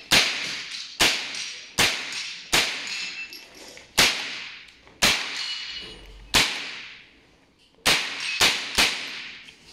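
Single shots from a .22 LR AR-15-style semi-automatic rifle, about eleven sharp cracks at irregular spacing of half a second to a second. Each crack has a short echo, and there is a longer pause of about a second and a half a little past the middle.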